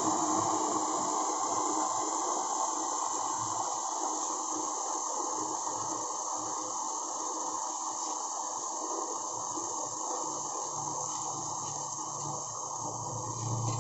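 Water with tea powder heating toward the boil in a stainless steel saucepan on a gas burner: a steady hiss with fine crackling from the small bubbles, and a low rumble swelling near the end.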